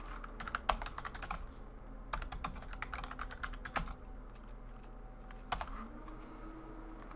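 Computer keyboard typing: two quick runs of keystrokes, then a single key press about five and a half seconds in.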